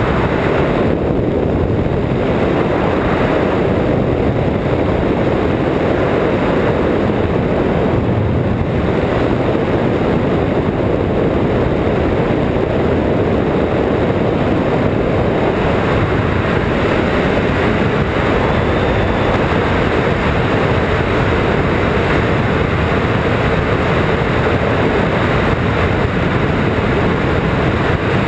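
Steady, loud rush of wind over a microphone mounted on a hang glider in flight.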